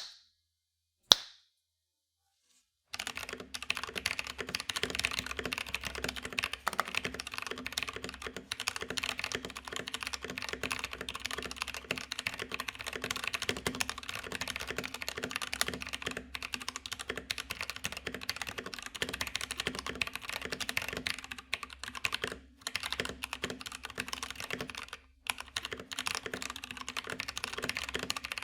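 Fast continuous typing on an FL eSports 68 65% mechanical keyboard with Kailh switches, starting about three seconds in and pausing briefly twice near the end. Two sharp single clicks come first, right at the start and about a second in.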